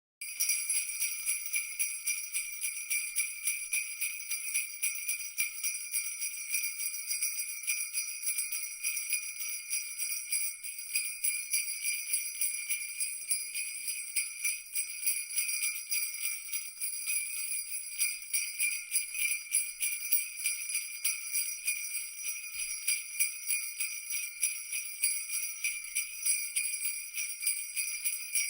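A cluster of jingle bells shaken continuously, giving a steady, rapid, high-pitched jingling.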